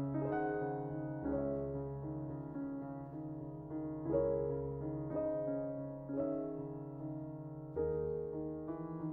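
Slow piano music, with chords struck about once a second and left to ring and fade.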